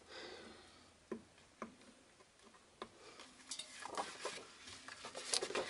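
Kraft cardstock pages being handled on a cutting mat: a few separate light taps, then paper rustling and crinkling from about halfway through as a card page is picked up and flexed.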